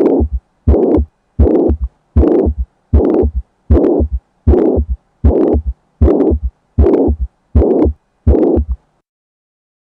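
Stethoscope recording of a heart beating regularly, a little under 1.5 beats a second, each beat carrying a murmur. About a dozen beats, then it stops about nine seconds in. The murmur is loudest at the apex and radiates to the axilla, the mitral regurgitation of a ruptured left-sided papillary muscle after a heart attack.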